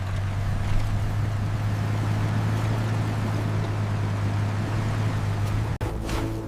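Steady low rumbling drone of a vehicle running, with a hiss over it. It cuts out for an instant near the end.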